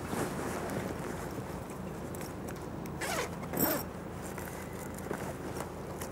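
Zipper of a Fjällräven Kånken backpack pulled open in two quick strokes about three seconds in.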